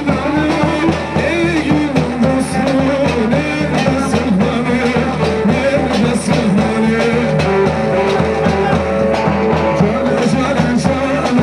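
Music with a fast, steady beat under a wavering melody line.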